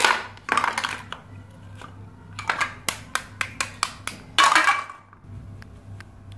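Plastic toy knife cutting apart velcro-joined plastic toy vegetables on a plastic cutting board: a rasp as the velcro halves tear apart, then a quick run of sharp plastic clicks and taps as pieces are handled, and a second rasp about four and a half seconds in. It goes quiet after about five seconds apart from a few faint ticks.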